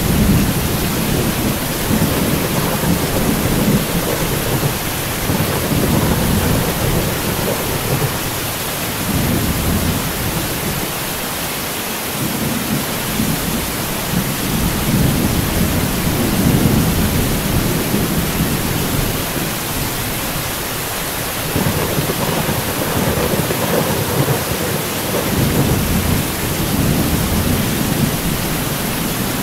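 Heavy rain hissing steadily while thunder rolls almost without a break, low rumbles swelling and fading every few seconds, with two short lulls in the rumble.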